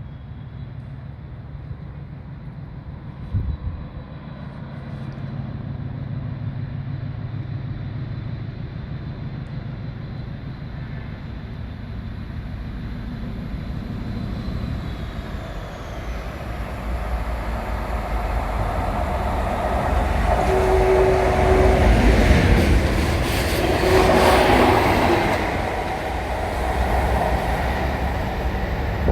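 Diesel-hauled engineering train, with a Class 50 and a Class 56 locomotive at either end, approaching and passing. Its engine rumble builds steadily and peaks with wheel and wagon noise about 20 to 25 seconds in, where two short steady tones sound, then eases. A single thump sounds about three seconds in.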